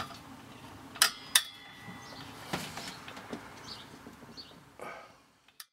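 Sharp clicks and knocks of a pressure-washer hose and its brass fitting being handled at a hose reel, two close together about a second in and another a moment later, fading out near the end.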